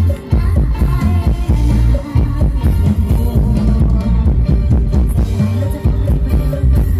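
Loud band music with a heavy bass and a steady beat.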